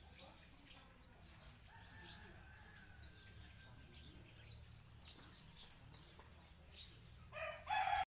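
A faint, high insect trill pulsing evenly throughout, with a rooster crowing loudly near the end.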